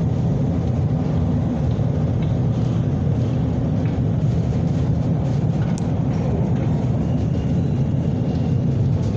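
Steady low rumble of a moving Miami Metromover people-mover car, heard from inside the car as it travels along the elevated guideway.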